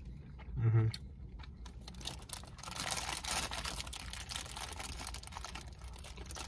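Clear plastic bakery wrappers crinkling and crackling as two people hold and bite into soft buns, denser from about halfway through. A brief hummed "mm" comes just under a second in.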